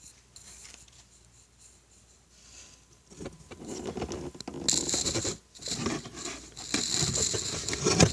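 Scraping, rattling and clicking as a door is worked open by hand, starting about three seconds in and growing busier toward the end.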